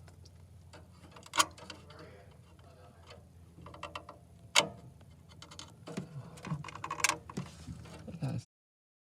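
Sharp clicks and knocks over a low steady hum: two single clicks, then a busier run of knocks and rattles near the end that cuts off suddenly.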